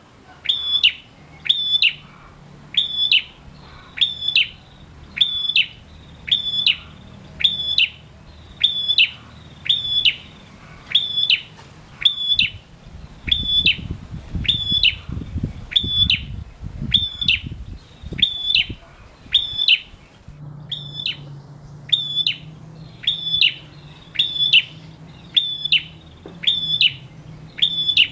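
Male ashy tailorbird (kept as a prenjak) calling: one short, sharp, high note repeated steadily about once a second.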